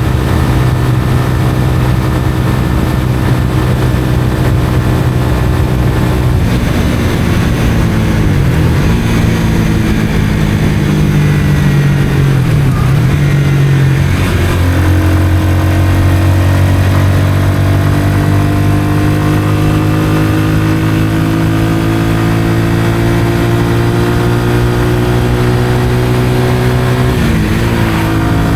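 Honda CBR125R's single-cylinder four-stroke engine through a Mivv aftermarket exhaust, under way on the road. It holds steady revs for several seconds, then dips briefly in pitch a couple of times as gears change. After that the revs climb slowly for over ten seconds under acceleration, with another quick dip near the end.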